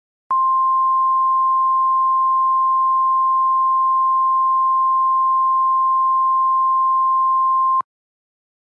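Emergency alert attention tone: a single steady beep near 1 kHz, held for about seven and a half seconds. It starts and stops abruptly and signals that an emergency message is about to follow.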